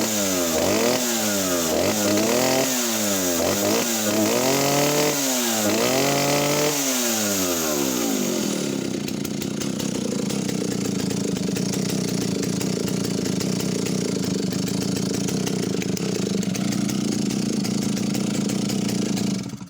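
Stihl 08S two-stroke chainsaw revving up and down in quick blips, about one a second, then dropping to a steady idle for about ten seconds before it cuts off suddenly at the end.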